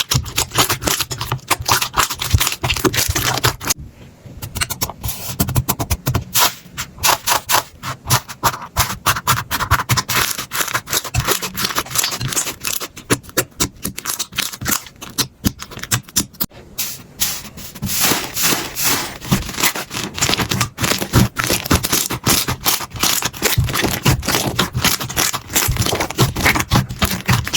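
Slime being squeezed and worked by hand, giving a dense run of crackling clicks and pops, with a short lull about four seconds in.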